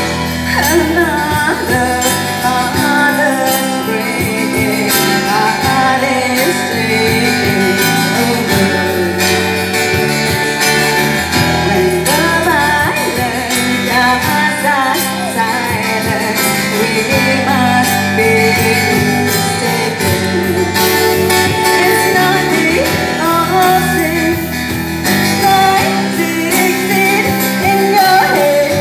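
Live band music: a woman singing powerfully into a microphone over amplified acoustic guitar, with drums keeping a beat.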